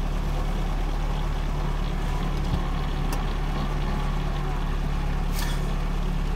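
Safari vehicle's engine idling, a steady low hum.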